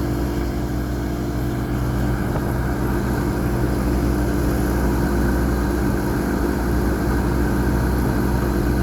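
Old Temperzone air-conditioning unit running steadily, a constant hum with a noisy fan that needs replacing.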